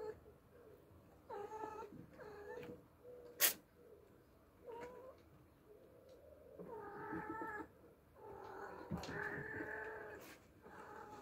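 Oriental cat meowing repeatedly: several short calls, then two long, drawn-out ones near the end. A single sharp click sounds about three and a half seconds in.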